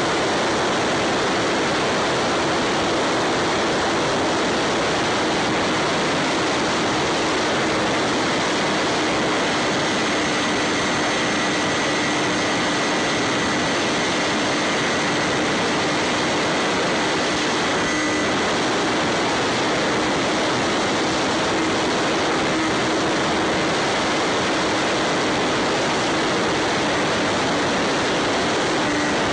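Bixler 3 RC plane's electric motor and propeller running in flight, recorded by the onboard camera, with a steady hum under loud wind rush.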